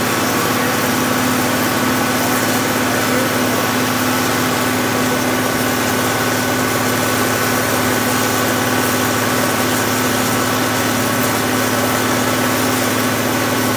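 John Deere 4230's turbocharged 404-cubic-inch diesel running steadily under load on a PTO dynamometer: a loud, even rush of noise with a constant hum and whine that hold one pitch throughout.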